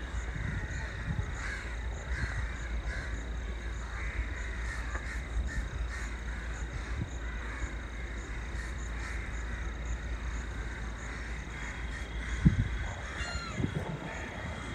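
Outdoor trackside ambience: birds calling over a steady low rumble of wind on the microphone. A single sharp thump comes near the end, and the low rumble drops away just after it.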